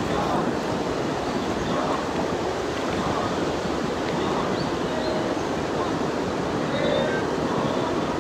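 Steady rushing noise of wind and flowing river water, even and unbroken.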